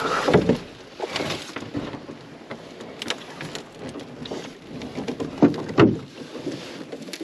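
Canoe paddle strokes: water splashing and dripping off the blade in irregular bursts, with a couple of louder splashes about five and a half seconds in.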